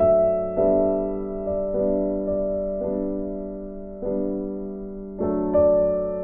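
Background piano music: a slow line of held chords, with new notes struck about once a second, each fading slowly.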